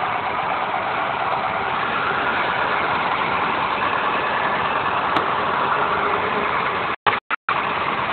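A vehicle's engine and cab noise, heard from inside the cab while driving slowly along a rutted dirt road: a steady, even drone. The sound cuts out briefly twice about seven seconds in.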